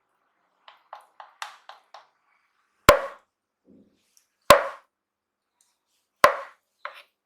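Kitchen utensils knocking on hard surfaces: a run of about six light quick taps, then three loud sharp knocks spaced under two seconds apart and a lighter one near the end.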